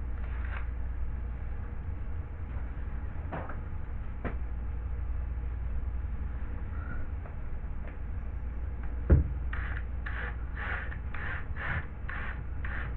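Hand work on drywall: a few light knocks and one sharp thump, then, from about two-thirds of the way through, a run of short, even scraping strokes, about two a second, over a low steady hum.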